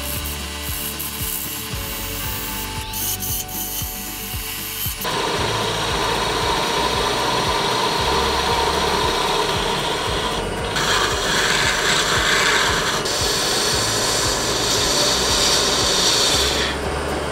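Wood lathe spinning a wooden spindle blank while a hand-held turning tool cuts into it, a steady scraping, shaving noise of the edge taking wood off. The sound changes abruptly a few times.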